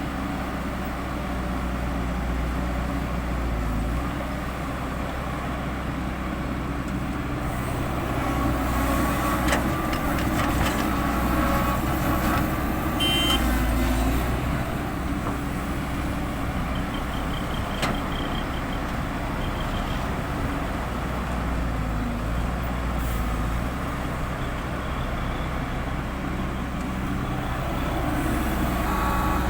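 Heavy diesel construction machinery running steadily, its engine note swelling and easing as it works under load, with a few sharp metallic knocks. A short run of faint high beeps sounds about two-thirds of the way through.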